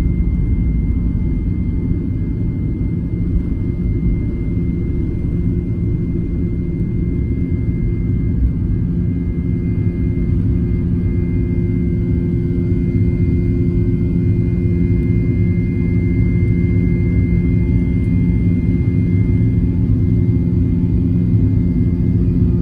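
Jet airliner engines at takeoff power, heard from inside the cabin: steady, loud low engine noise with a few held tones. A rough runway rumble in the first part smooths out at liftoff, about ten seconds in, and the climb continues.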